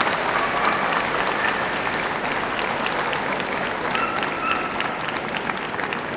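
Audience applauding, a dense, steady clapping that eases off slightly toward the end.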